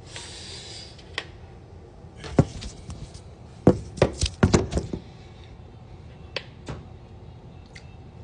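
A short hiss, then a quick run of sharp knocks and clicks around the middle, like hard kitchen items being knocked or chopped on a counter.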